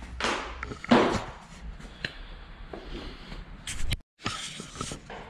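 Handling noise: rustles and knocks as the camera is picked up and moved about, with a loud noisy burst about a second in. The sound drops out abruptly for a moment near the end.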